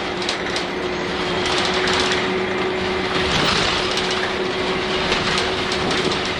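Nissan Diesel UA city bus with a PU6 natural-gas engine, heard from inside the cabin while under way: a steady engine and driveline tone over road noise, with light interior rattles and clicks.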